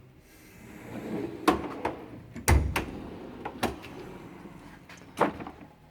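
Drawers of a Matco 6S steel tool chest sliding: a drawer rolls along its slides and shuts with a deep thump about two and a half seconds in, with sharp clicks and knocks of metal before and after as the next drawer is opened.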